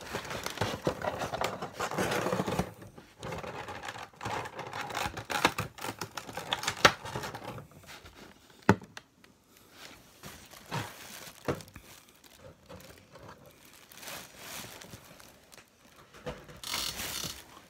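Unboxing a vinyl figure: cardboard box and clear plastic packaging insert being handled, with rustling, crinkling and scattered clicks and light knocks. Busier in the first half, then sparser taps and clicks.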